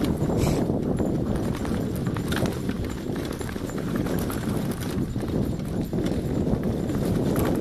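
Continuous rumble and rhythmic footfalls of travel at speed along a dirt track, behind two malamutes pulling in harness.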